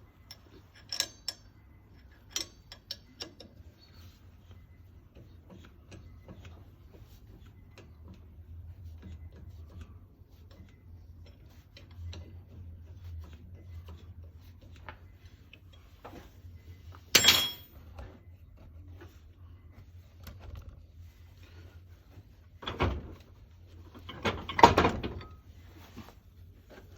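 Scattered metallic clinks and knocks of tools and metal parts being handled on a workbench, with one sharp loud clank about two-thirds of the way in and two heavier knocks near the end, over a faint steady low hum.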